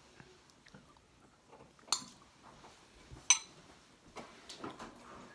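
A metal spoon clinking against a bowl of ice cream: two sharp clinks just over a second apart, then a few fainter taps near the end.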